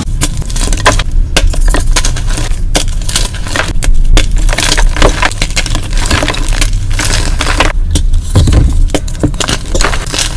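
Dyed gym chalk blocks being crushed and crumbled by hand: a dense, continuous run of dry crunches and crackles, played sped up.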